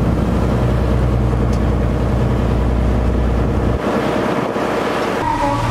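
Tour boat's engine running steadily, heard as a loud low drone from on board. About two-thirds of the way through, the low rumble drops away as the engine eases off near the cave entrance.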